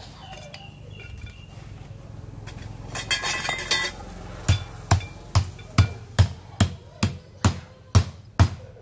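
Metal clinking for about a second, then steady hammer blows starting about four and a half seconds in, roughly two and a half a second, about ten in all.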